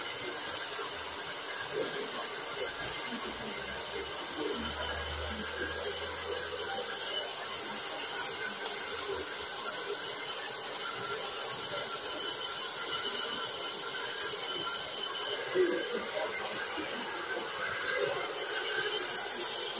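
Hand-held hair dryer blowing steadily, a constant rushing hiss with a thin high whine over it, as the hair is brushed into shape. A single sharp tap about three-quarters of the way through.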